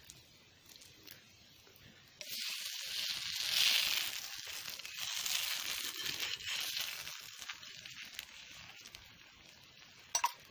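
Omelette frying in a pan over a wood fire: a sizzling hiss starts suddenly about two seconds in and slowly fades over several seconds. A short sharp knock comes near the end.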